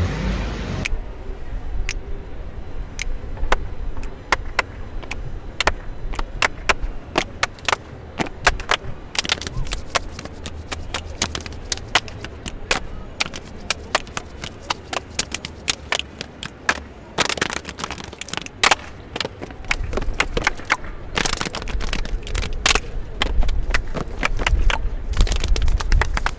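A group of dancers doing body percussion, mostly hand claps with slaps on the chest, as a long run of sharp, separate claps that gets denser in the second half.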